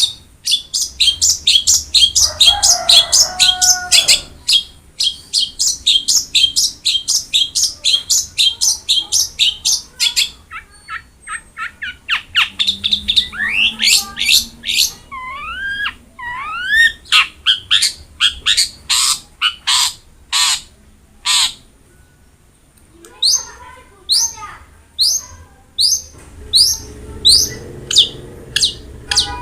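Long-tailed shrike (cendet) singing. Its song is fast runs of sharp, high notes, about five a second, broken by a short lower buzzy phrase early on. About halfway it gives a few sliding whistled notes, then more spaced single notes.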